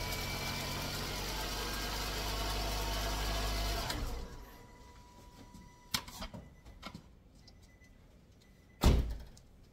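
Car engine idling after being jump-started from a portable jump-starter pack, then cutting off about four seconds in. A few light clicks follow, and near the end there is one loud, heavy thump.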